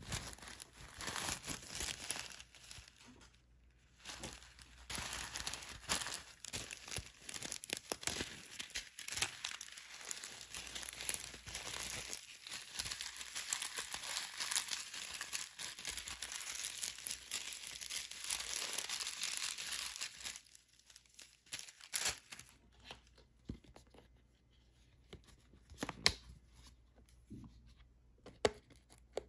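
Thin plastic bag crinkling while pink foam beads are poured out of it into a glass bowl, for about twenty seconds. After that only a few scattered clicks and taps as a plastic makeup palette is handled.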